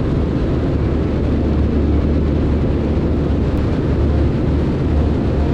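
Cessna 162 Skycatcher's Continental O-200 four-cylinder engine and propeller in cruise flight: a steady, even low drone.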